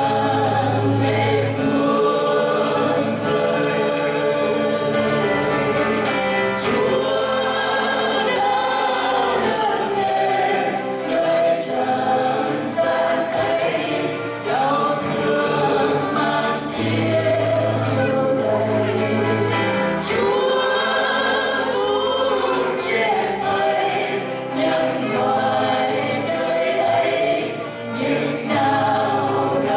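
Worship singers at microphones singing a Christmas carol together over sustained low accompaniment notes.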